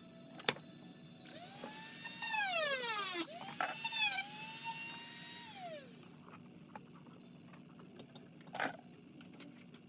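Dremel rotary tool whining as it speeds up and cuts into a plastic blaster shell, then winding down with a falling pitch. It spins up again about three and a half seconds in and runs down again near six seconds. A sharp click comes just before, and a short knock near the end.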